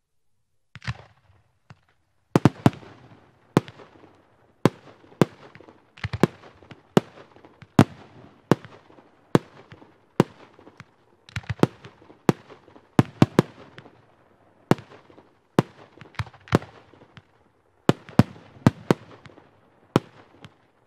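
Mega Starlight Show firework cake firing: a long string of sharp reports, about one or two a second, with crackling hiss between them, starting about a second in.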